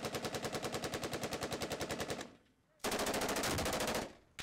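Heavy machine gun firing a long automatic burst at about ten rounds a second, which stops about two seconds in. A second sustained burst starts about half a second later and lasts just over a second.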